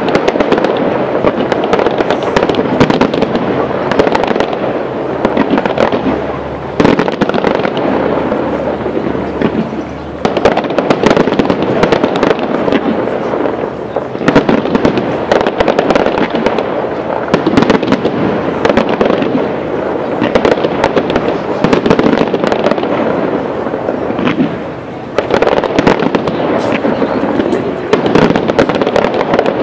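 Aerial fireworks display: a dense, continuous barrage of shell bursts, bangs and crackling, with many sharp reports and a few short lulls.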